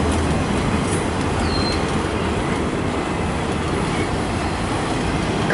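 Autorack freight cars of a freight train rolling past at close range: a steady, continuous noise of wheels running on the rails.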